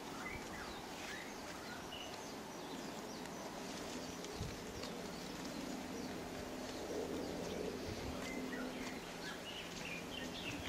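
Quiet outdoor background with faint, scattered bird chirps. A faint steady hum runs for several seconds in the middle, and there are a couple of soft thumps.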